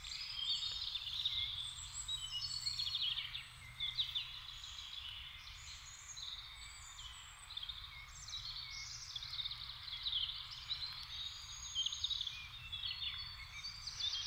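Several songbirds singing at once, a continuous tangle of short chirps and trills, over a faint low background rumble.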